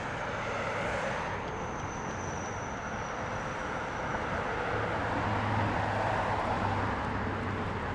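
Street traffic: cars driving past on a town road, a steady wash of road noise with a low engine hum that swells slightly as a car passes close about five seconds in.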